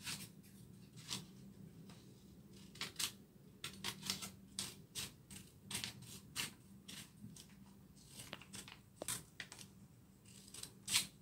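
Small children's scissors snipping through sheets of paper: an irregular series of short, crisp snips, a few each second in places.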